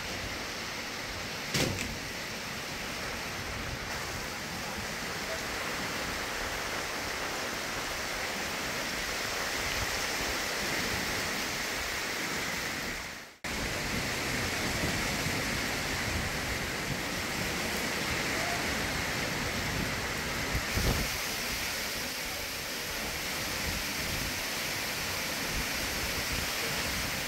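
Heavy rain pouring down in a steady rush, with a brief thump about a second and a half in and another around two-thirds of the way through; the sound drops out for a moment about halfway.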